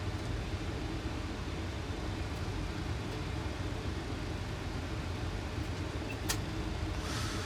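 Steady flight-deck noise of a Boeing 737 on approach: airflow and engine hum, with a single click about six seconds in.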